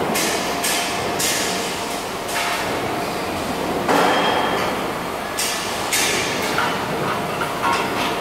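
Robot welding cell and its jig fixture on a factory floor: a steady machinery hum with repeated short hissing bursts, about a dozen in all, and light metal clinks.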